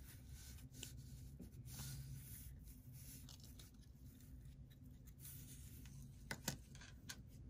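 Faint handling noise: fingers turning and rubbing a plastic bottle-cap carp feeder with a wire spring coil, with a couple of light clicks about six and a half seconds in.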